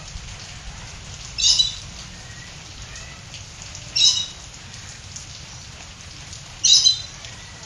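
Steady rain falling, with three short high chirps from a canary a couple of seconds apart.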